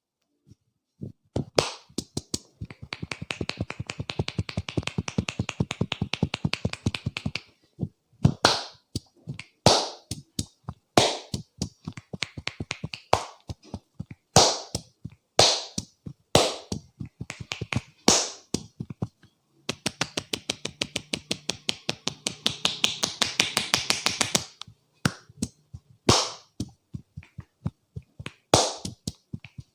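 Hands slapping and tapping on a head in a percussive head massage. A fast run of light taps gives way to single sharp slaps about once a second, then comes another fast run and a few more slaps.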